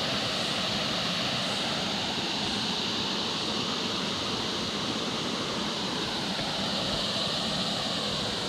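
Creek water running steadily into a rock pool, an even hiss that holds at one level.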